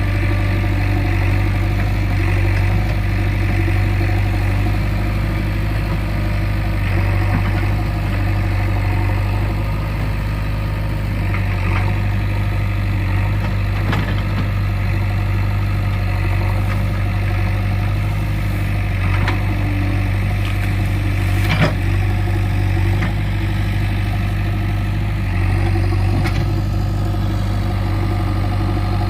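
Diesel engine of a JCB 3DX backhoe loader running steadily, with a few short knocks, the loudest about two-thirds of the way through.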